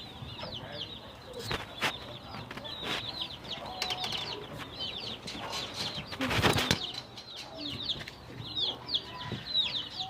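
Chicks peeping continuously, many short high calls that slide downward in pitch, with a short burst of wings flapping a little over six seconds in.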